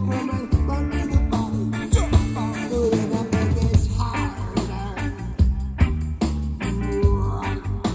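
Live reggae-rock band playing: steady bass line, regular drum hits and guitar, with some singing.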